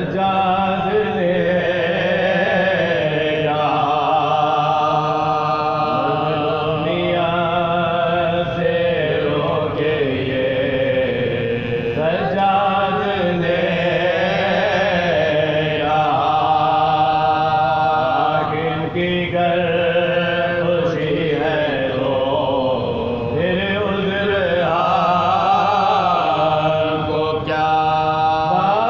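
Male chanting of a soz khwani marsiya, a melodic Urdu elegy of mourning, sung in long, wavering held notes and phrases a few seconds long with short breaks between them.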